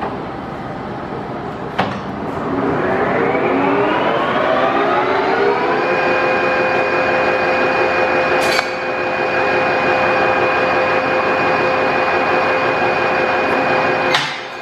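Harrison M350 lathe's geared headstock spinning up: a click about two seconds in, then a gear whine that rises in pitch for about four seconds and settles into a steady run. A sharp click comes about eight and a half seconds in, and near the end another click as the spindle begins to wind down.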